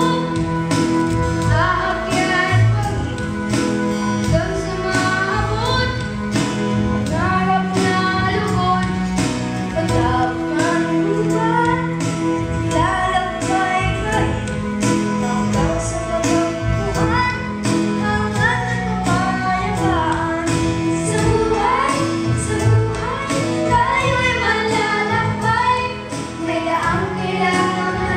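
Young voices singing a Tagalog song from a stage musical, over backing music with a steady beat.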